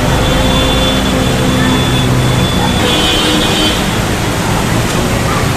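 Road traffic moving through a flooded street in heavy rain: vehicle engines running over a steady hiss of water and spray.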